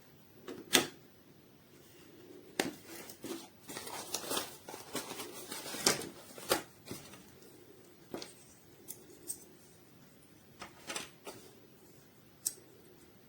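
Handling noises: scattered sharp clicks and taps, with a busier stretch of rustling and clicking in the middle.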